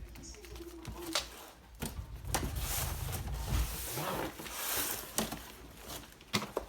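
A parcel of car parts being unpacked by hand: packaging rustles and crinkles, with several sharp clicks and knocks as pieces are handled.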